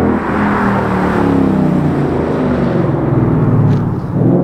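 Ford Mustang GT's 5.0-litre V8 with an aftermarket cat-back exhaust and stock headers, accelerating hard past and away. Its note glides as the revs change, with a sharp drop and climb near the end.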